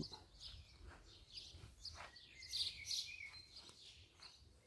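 Faint chirps and calls of small birds, scattered short high notes with one thin held note about two seconds in.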